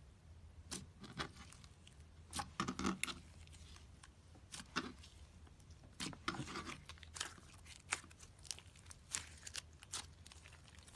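Slime being squeezed and poked by hand, giving scattered sharp clicks and pops with two denser crackly, squelchy stretches about two and a half seconds in and about six seconds in.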